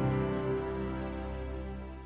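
Soft music with held, sustained notes, fading out steadily.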